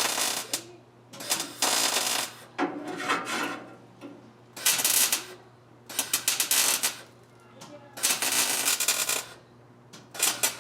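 Wire-feed (MIG) welder laying short stitch welds on a rusty inner fender patch panel: about six crackling bursts, each around a second long, with short pauses between them. The rusty metal is making it hard to weld cleanly.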